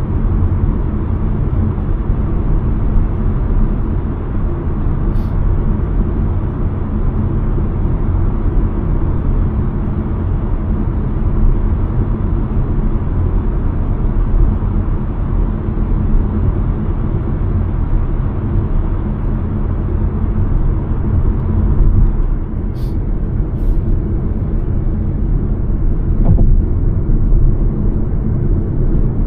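Steady driving noise heard inside the cabin of a CUPRA Formentor 2.0 TSI at speed on the motorway: a deep rumble of tyres, wind and engine, with a few faint clicks.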